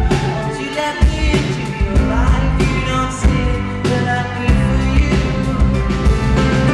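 Live pop band performing a dance-pop song: sung lead vocal over keyboards, electric guitar and a steady dance beat with about two strikes a second.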